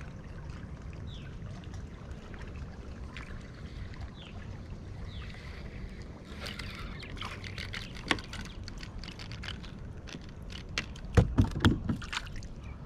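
Small clicks and knocks of a spinning rod and reel being handled in a kayak, with a few louder thumps against the kayak near the end, over a low steady rumble.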